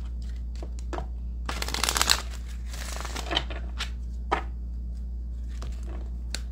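A Soul Journey oracle card deck being shuffled by hand: a quick flurry of card flicks about a second and a half in, followed by a few single card taps and slides, over a steady low hum.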